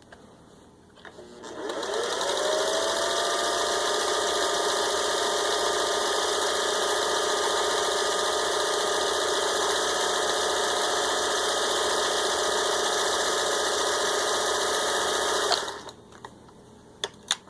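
Vintage 1957 Singer 401A sewing machine, freshly serviced, starting up about a second and a half in with a rising whine as the motor comes up to speed, then running steadily at speed while stitching a built-in decorative pattern, and stopping suddenly near the end, followed by a couple of sharp clicks.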